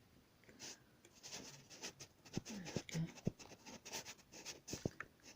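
Small clicks and scratchy rubbing from hands working inside an opened laptop, pressing a cable connector down into place.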